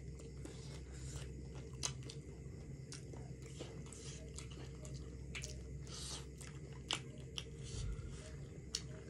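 Close-up chewing and biting on chicken biryani, with irregular wet mouth clicks and smacks, over a steady low hum.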